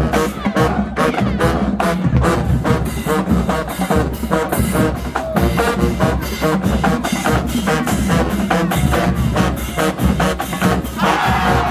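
HBCU marching band playing a dance number: the drum line's bass and snare drums beat a steady, fast rhythm. A bright section of held notes, typical of the brass, comes in near the end.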